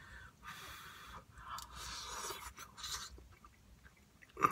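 A person chewing a mouthful of hot curry and rice, with hissy breaths through the mouth in three stretches. A single sharp click near the end, the plastic fork striking the takeout bowl.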